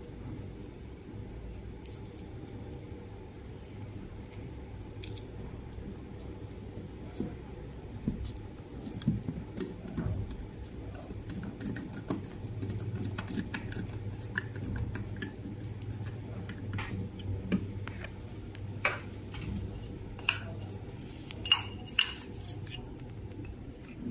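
A screwdriver clinking and scraping against the screws and metal joint of a plastic security-camera wall bracket, with scattered clicks and taps of hard plastic parts being handled. The clicks come at irregular intervals and are sharpest and most frequent near the end.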